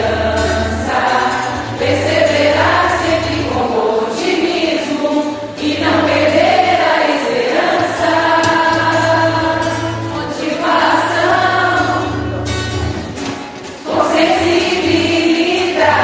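Music: a choir singing over instrumental backing with sustained bass notes, pausing briefly near the end before the next phrase.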